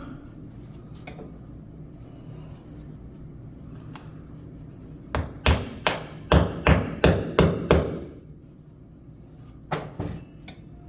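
Hammer tapping glued plugs into old holes in a wooden door frame: a quick run of about nine sharp blows, roughly four a second, then two more near the end.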